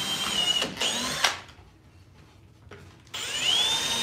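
Cordless drill running in bursts, driving screws into a wooden chair frame through a plywood seat. Its whine stops about a second in, comes back in a short burst, pauses for about two seconds, then rises in pitch again as the motor spins up near the end.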